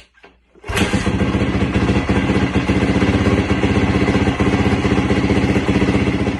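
Freshly rebuilt 2005 Honda CRF450R single-cylinder four-stroke engine starting suddenly less than a second in and running steadily with rapid, even firing pulses.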